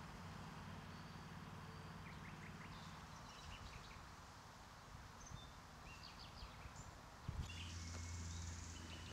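Quiet outdoor park ambience: a faint, steady low hum with scattered short bird chirps. Near the end there is a sudden bump, followed by about a second of louder low rumble.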